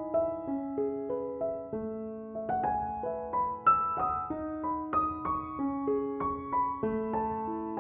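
Background music: a gentle piano piece, a slow melody over sustained low notes.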